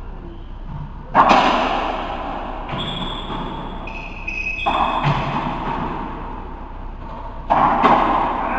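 Racquetball rally in an enclosed court: three loud hits about one, five and seven and a half seconds in as the ball is struck and slams off the walls, each ringing on in the court's echo. Between the first two hits come high squeaks of court shoes on the hardwood floor.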